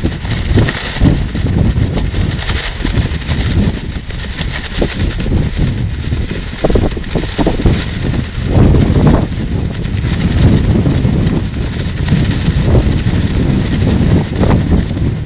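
Strong gusty wind buffeting the microphone as a low, rumbling roar that swells and eases, with the plastic rain suit flapping and crackling in the gusts.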